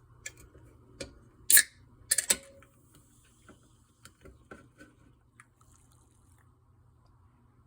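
A fizzy orange Fanta being opened and drunk: a few small clicks, then a sharp hiss of escaping gas about one and a half seconds in and another just after two seconds, followed by faint fizzing and small clicks and liquid sounds as it is sipped.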